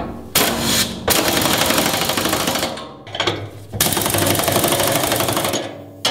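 Impact wrench running down the nuts on the fuel tank's strap bolts, in four bursts of rapid hammering; the last and longest lasts nearly two seconds.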